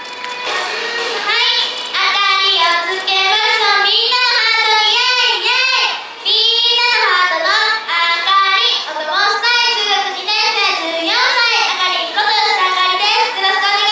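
Young women's voices singing a song together into a microphone, the melody carried in long held and gliding notes.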